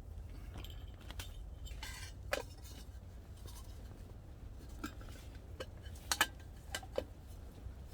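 Camp dishes and utensils being handled: a scatter of light clinks and knocks, the loudest a quick double clink about six seconds in, over a steady low rumble.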